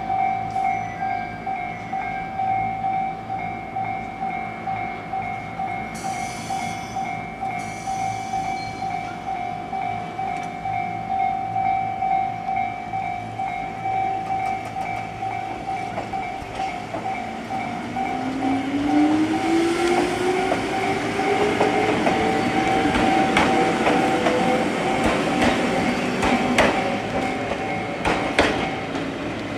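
A railway level-crossing alarm rings in a steady, pulsing tone and stops near the end. From about halfway an Ichibata Electric Railway 3000 series electric train pulls away: its traction motors whine, rising in pitch, and its wheels clack over the rail joints, growing louder.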